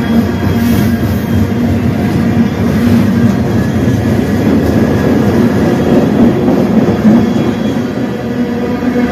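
Long CN freight train rolling past, its steel wheels rumbling steadily on the rails with a steady hum running through the noise.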